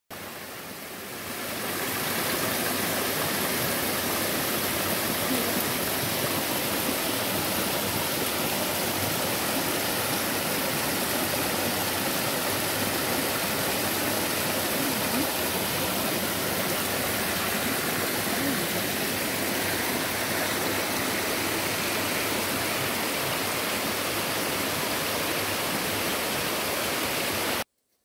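Mountain stream rushing over rocks and small cascades between boulders, a steady water rush. It fades in over the first couple of seconds and cuts off abruptly near the end.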